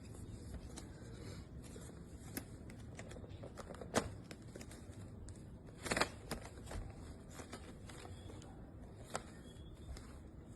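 Handling noise: a few scattered sharp clicks and one brief rustle over a faint steady hiss.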